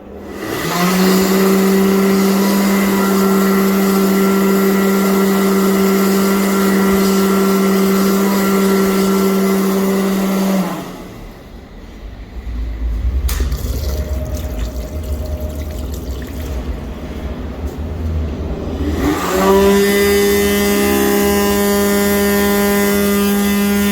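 Mediclinics Speedflow hand dryer starting up and running with a steady loud hum and whine, cutting off after about ten seconds. A deep low rumble follows. A hand dryer then starts again about nineteen seconds in and runs on with a harsher, many-toned whine.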